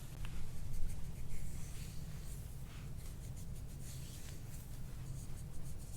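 Soft rubbing and brushing of hands massaging skin, over a steady low hum.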